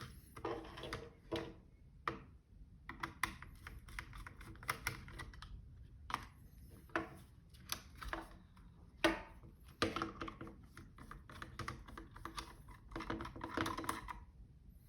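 Irregular clicks, taps and light rattles of small parts being handled as an electric desoldering gun is dismantled by hand, with one louder knock about nine seconds in.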